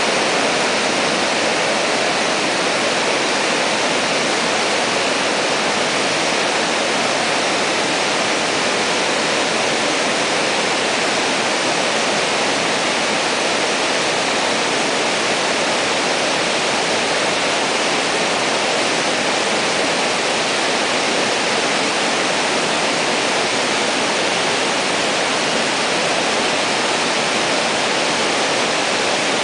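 Waterfall and the stream at its foot: a loud, steady rush of falling and churning water.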